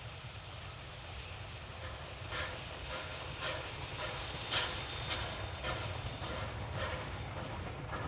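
Steam train hauled by Ww 480, a 4-6-4T tank locomotive, going past. It gives a run of even rhythmic beats, about two a second, that swell to a peak a little past the middle and then fade, over a steady low rumble.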